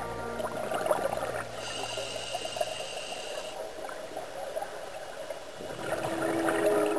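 Underwater sound of scuba bubbles, a gurgling, crackling bubble noise. A high steady tone sounds for about two seconds, and a lower steady tone starts near the end.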